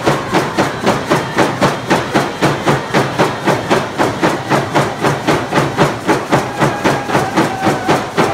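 Hand drums beaten together in a fast, even beat, about four strokes a second, accompanying a stick game (slahal) song, with voices singing faintly under the drumming.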